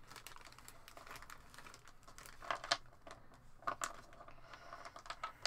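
Clear plastic bag crinkling as hands open it and take out small 3D-printed miniatures, with a few louder crackles about two and a half seconds and nearly four seconds in.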